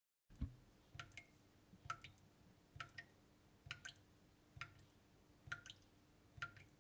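Faint intro sound effect of soft drip-like plinks, evenly spaced about one a second, each a quick click with a short ping and some followed at once by a softer second plink.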